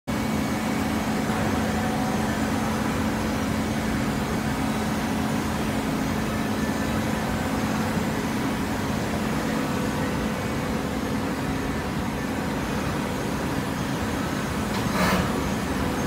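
Hydraulic horizontal baler and its feed line running: a steady industrial drone with a constant low hum. A short, sharp burst of noise comes near the end.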